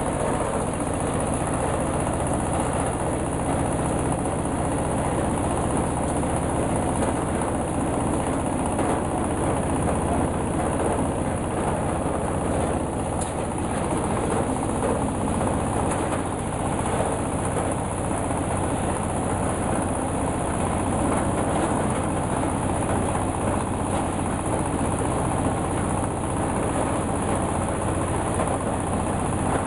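Horizontal single-cylinder diesel engine running steadily, belt-driving a coconut husk decorticator.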